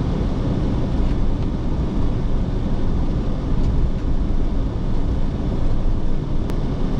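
A van driving on snowy roads, heard from inside the cab: a steady low rumble of tyre and engine noise.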